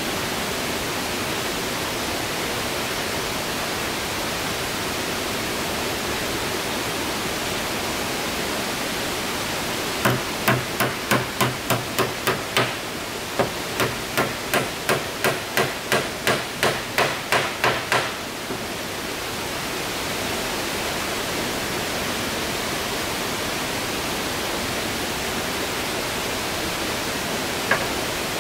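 Hammer blows on wooden roof boards: two quick runs of strikes, about eight and then about a dozen, some three to four a second with a short pause between, then a single blow near the end. A steady rushing hiss lies under it all.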